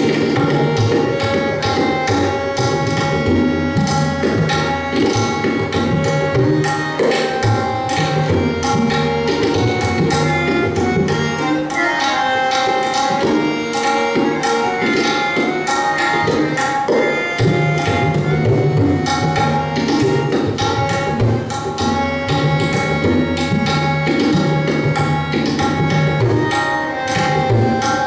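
Tabla solo in teentaal, many drum strokes from the treble drum and the bass drum. A harmonium underneath sustains the repeating nagma (lehra) melody.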